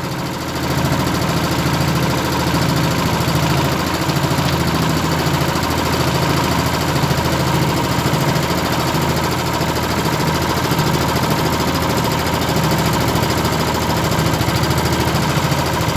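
Boat engine running steadily while the boat is under way, an even drone that holds the same level throughout.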